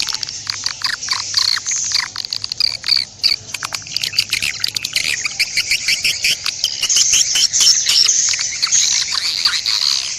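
Birds chirping in a dense, rapid stream of short high-pitched notes, growing thicker and more continuous about halfway through.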